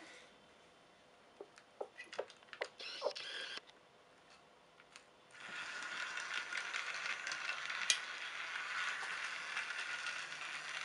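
Battery-powered Chuggington toy train's small electric motor and gears running with a steady whir, starting about five seconds in. Before it, a few light clicks as plastic track pieces are handled.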